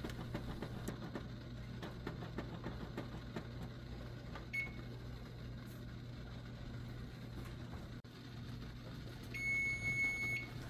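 Electronic kitchen timer beeping: one short beep about four and a half seconds in, then about a second of beeping near the end as the 15-minute canning timer goes off. A low steady hum runs underneath.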